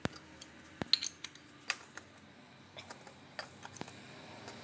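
Irregular sharp metallic clicks and clinks, about eight of them, with the loudest about a second in, as a spin-on oil filter and a cup-type filter wrench are handled while the new filter is tightened by hand.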